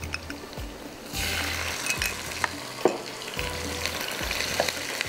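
Boneless chicken and spices frying in oil in a pan. The sizzle grows louder about a second in, and the utensil stirring the pan gives a few sharp clicks.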